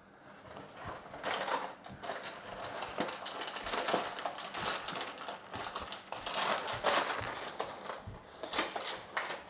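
Slime being squeezed and worked by hand, with a dense run of crackles, clicks and small pops that swells and eases several times.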